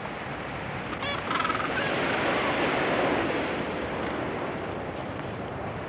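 Sea surf: a wave swells and washes in, peaking about three seconds in and then easing off. A brief bird call sounds about a second in.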